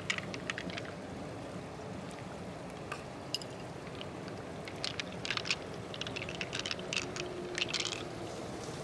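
Small wet squelches and sharp clicks as fingers dig pearls out of a giant freshwater clam's flesh and the pearls knock against each other and the shell, most of them in a cluster over the second half. Under them runs a steady low rumble.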